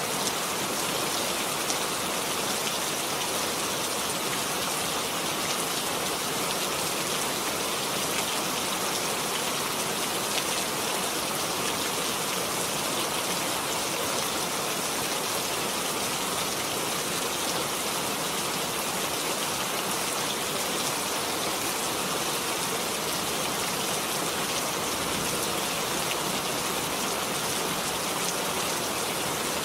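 Steady rain falling and pattering on surfaces, an even hiss of many drops without letting up.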